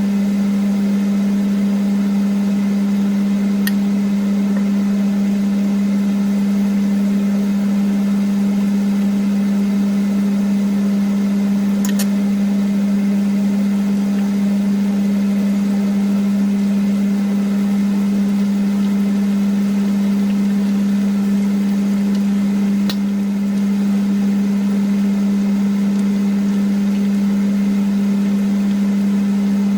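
Kitchen range hood fan running with a steady hum, with three faint clicks.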